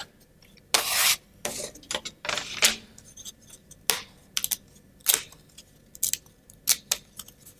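Laser-cut plywood sheets scraping and rubbing against each other as one is lifted from the stack, then several sharp little snaps as a wooden part is pressed out of its sheet and its holding tabs break.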